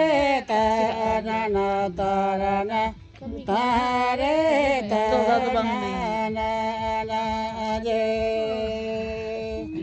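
Chant-like singing over a steady low drone. The melody moves in short phrases at first, then settles into long held notes about halfway through.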